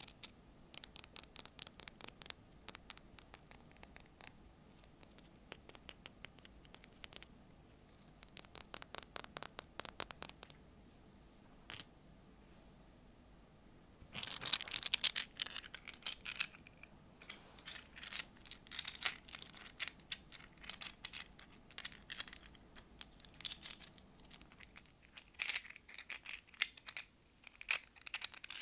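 Fingers tapping and scratching on seashells and small beach trinkets, in quick runs of light clicks, with a denser, louder stretch of tapping and scratching about halfway through.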